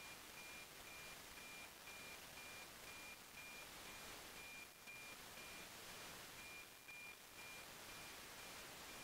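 NOAA weather satellite APT signal demodulated by a software-defined radio: a faint, high, steady tone pulsing about twice a second, one pulse per image line, under heavy radio static. The signal is weak against the noise.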